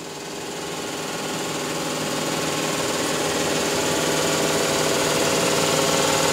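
Sheepskin shearing machine running: its motor and rollers build up over the first couple of seconds, then run steadily with a humming drone.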